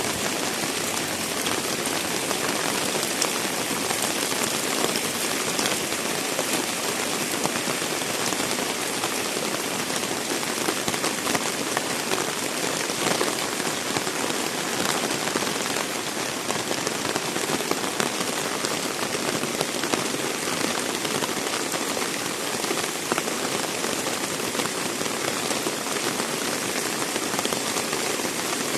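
Heavy rain falling steadily on surfaces, a dense even hiss with fine patter of drops.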